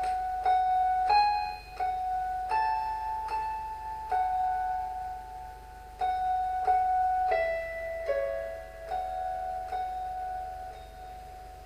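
Slow melody of single piano notes, each struck and left to ring.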